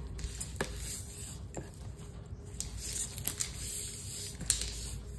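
Cardboard box being handled and rubbed by hand, with a few light clicks and knocks, the sharpest about four and a half seconds in, over a steady low hum.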